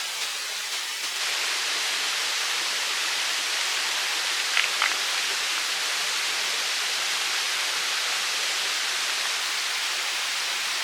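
Steady rushing of running water, stepping up slightly in level about a second in. Two brief high sounds cut through it a little before the middle.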